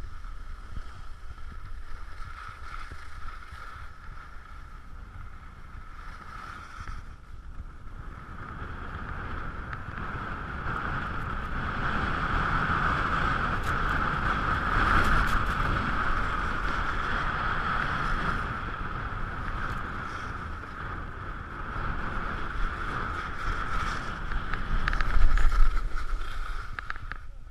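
Wind rushing over a ski-mounted action camera's microphone together with skis sliding and scraping over packed snow on a downhill run. The noise grows louder through the middle of the run, with a heavy gust of wind rumble a little before the end.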